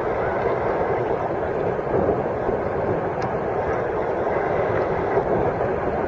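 Steady rushing noise of water around a sea kayak moving through small surf near the shore.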